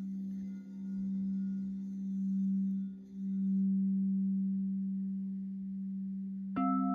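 Alchemy crystal singing bowl sounding a sustained low tone that swells and fades in slow waves. Near the end another bowl is struck and rings out with higher notes over it.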